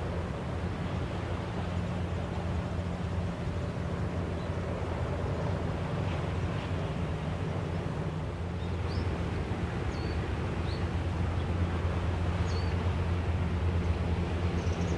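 Steady low drone of a motorboat engine out on the water, growing slightly louder toward the end. A few short high chirps come through about midway and near the end.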